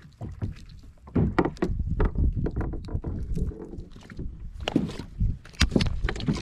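Irregular knocks and clicks of fishing gear being handled on a plastic fishing kayak, over a low steady rumble of water and wind.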